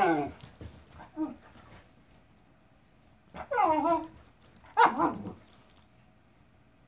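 A white fluffy puppy barking in play, about four short high calls that fall in pitch, the two loudest a little past halfway.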